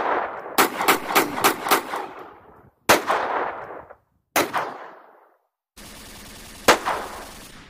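Gunfire sound effects: a quick burst of about six shots about half a second in, then single shots spaced a second or more apart, each dying away slowly. Near the end a steady hiss sets in under one last shot.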